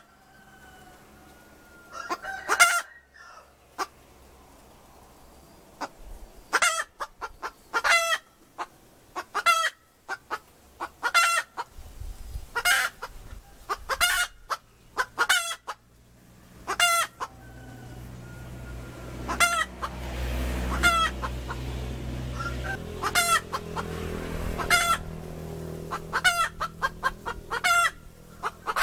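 A hen calling: short, loud, clucking notes repeated every second or two. A low rumble swells and fades behind the calls in the middle.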